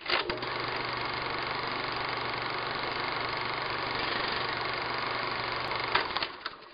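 Steady mechanical running noise with a low hum, starting abruptly and stopping about six seconds in with a few clicks.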